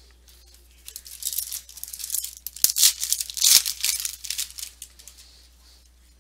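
A foil trading-card pack (2015 Bowman Chrome Baseball) being torn open by hand: a crackling rip and crinkle of the wrapper that builds about a second in, is loudest in the middle, and dies away after about five seconds.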